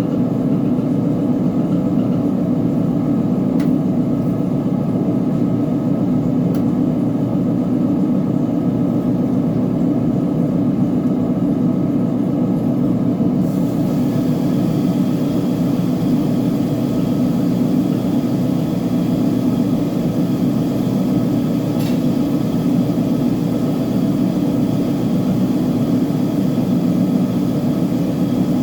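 Uni-Mac UniMat 35 commercial front-load washing machine running through its cycle with a load of blankets: a steady mechanical drone. A faint higher hiss joins about halfway through.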